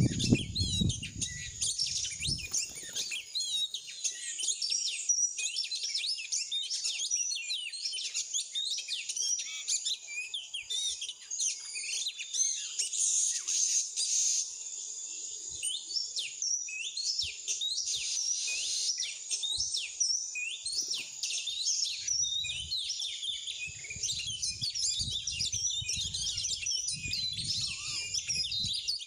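Songbirds chirping and singing in a dense, continuous run of quick high chirps and trills. A low rumbling noise comes in at the start and again in the last several seconds.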